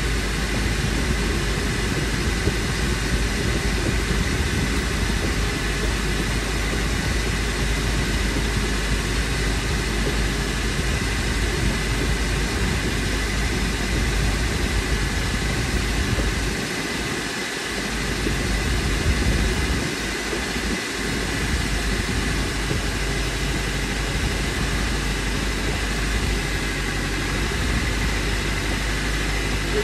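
Honda Element's 2.4-litre four-cylinder engine idling steadily.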